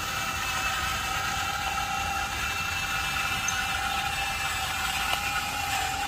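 Huina RC excavator's electric track-drive motors and gearboxes running with a steady whine as the model drives on its tracks.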